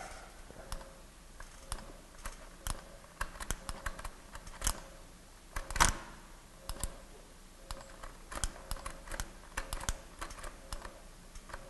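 Irregular small metallic clicks and taps as fingers work the gears, levers and cam of an opened Solari flip clock's mechanism. One click about six seconds in is louder than the rest.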